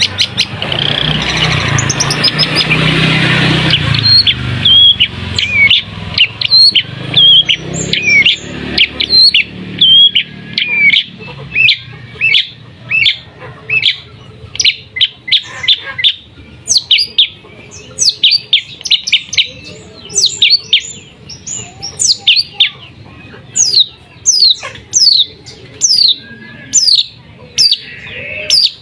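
Caged long-tailed shrike (pentet) singing a long, rapid volley of short, sharp notes, several a second; about halfway through the notes turn into higher, steeply falling whistles. A loud rushing noise covers the first few seconds.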